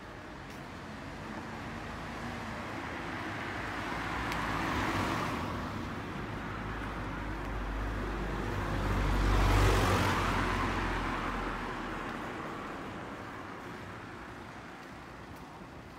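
Road traffic: two vehicles passing one after the other. The first swells and fades about five seconds in; the second is louder, with a low engine rumble, and passes closest about ten seconds in before dying away.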